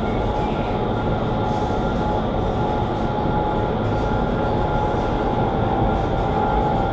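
iFly vertical wind tunnel running at flying speed: a steady, loud rush of fan-driven air with a couple of constant whining tones, unchanged throughout.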